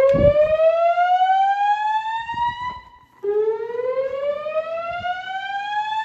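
Notifier 3030 fire alarm system's DVC voice-evacuation tone over the building speakers: a slow whoop, rising steadily in pitch for about three and a half seconds, cutting off, then rising again. This is the evacuation alert tone that alternates with the recorded evacuation announcement. A low thump of handling noise sounds near the start.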